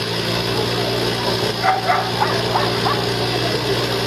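Whippets barking and yelping in short, sharp yips, a quick run of them about halfway through, over a steady low hum.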